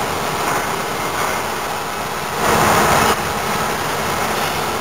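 Airless paint sprayer spraying paint: a steady hiss, louder for well under a second about halfway through.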